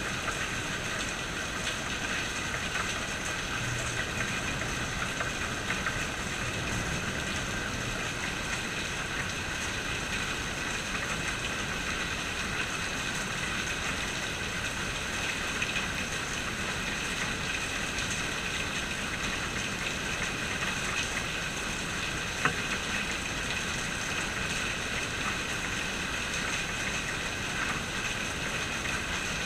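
Steady rain falling, with scattered drops ticking on hard surfaces and one sharper drop tap about three quarters of the way through.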